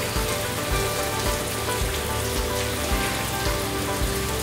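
Shower water running in a steady hiss like rain, under background music with a steady beat.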